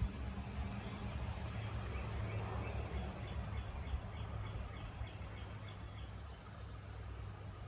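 A bird calling, a quick run of short high chirps from about two to four seconds in, over a steady low rumble.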